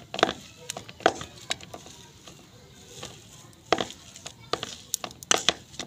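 A potato masher working boiled potato filling in a steel pan, its head knocking against the pan in irregular sharp clacks, loudest about a second in and near the end.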